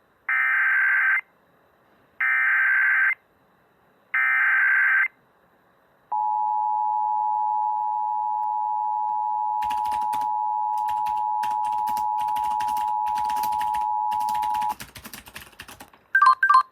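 Emergency Alert System broadcast tones: three one-second bursts of the SAME digital header data, then the steady two-tone EAS attention signal held for about eight and a half seconds. Irregular clicking noise comes in partway through the tone and carries on after it stops, and a couple of short beeps sound near the end.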